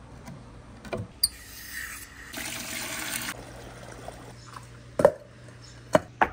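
Water from a hose pours and splashes into a glass aquarium tank for about two seconds in the middle. Before and after it come sharp knocks of heavy things set down on concrete; near the end these are concrete paving slabs being laid.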